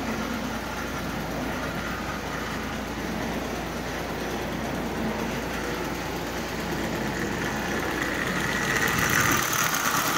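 Marx 666 toy steam locomotive with a double-reduction motor running steadily on three-rail tin track while pulling eight passenger cars, a continuous whir and rumble of motor and wheels on metal rail. It gets louder near the end as the locomotive passes close by.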